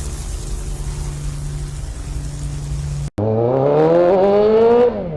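Yamaha XJ6's inline-four engine running through an open exhaust (bare pipe, no muffler), steady at first, then after a brief break revving up in a rising pitch for about two seconds before dropping back.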